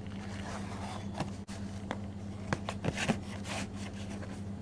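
Packaging and product boxes being handled and taken out of a carton: scattered soft taps, clicks and rustles, most of them between about one and three and a half seconds in, over a steady low hum.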